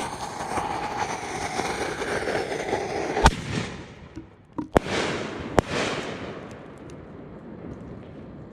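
Winda Double Dragon 6-inch double-break canister shells going off: about three seconds of hissing, crackling effect, then a sharp bang a little over three seconds in and two more sharp reports over the next two seconds, each trailed by hiss.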